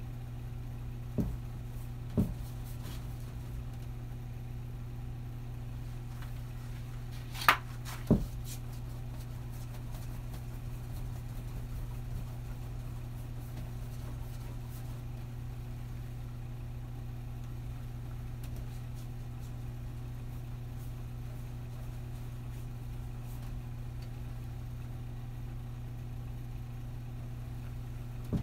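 Steady low mechanical hum, with two short knocks in the first few seconds, then a sharp click and another knock about seven to eight seconds in.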